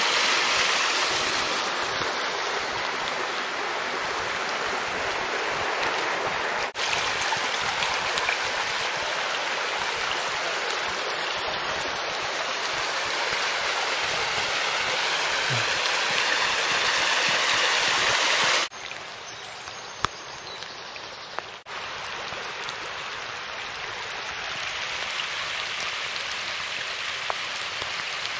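Floodwater rushing across a road surface: a steady hiss of flowing water. It changes abruptly a few times and is quieter from about two-thirds of the way through.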